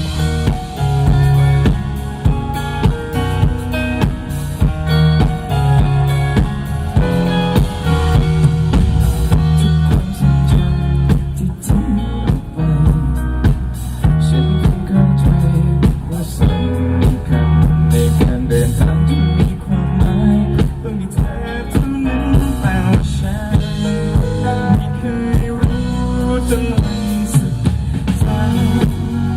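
Live band playing an instrumental passage of a pop-rock song, with a steady drum-kit beat and electric guitar over the bass.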